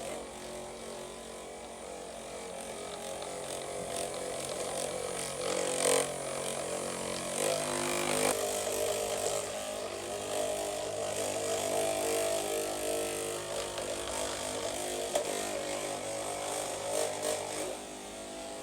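Small electric motor buzzing steadily, its pitch shifting twice about halfway through, then cutting off suddenly at the end.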